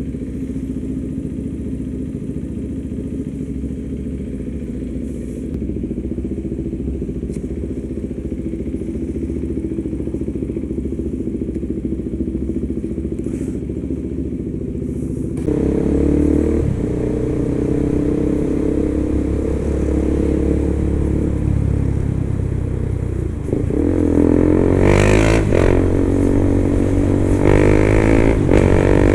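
KTM 390 motorcycle's single-cylinder engine running at low, steady revs. About halfway through it gets louder. Late on, its pitch climbs several times as the bike accelerates.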